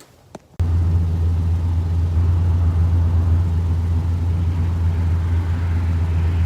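A loud, steady, low engine-like drone that cuts in suddenly about half a second in and holds unchanged.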